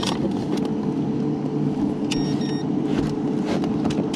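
Boat motor running steadily with a low hum. Two short, high electronic beeps sound about two seconds in.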